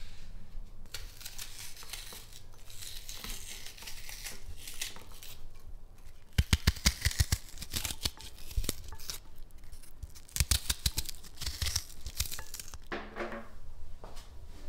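A knife cutting through an onion held in the hand, with crisp cuts and small pieces dropping into a ceramic bowl. Quick runs of sharp clicks come about six seconds in and again around ten seconds.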